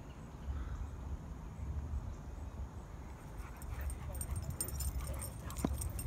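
Two dogs playing on grass, with faint dog noises and scuffling, over a low rumble of wind on the phone microphone; clicks and rustles pick up about halfway through.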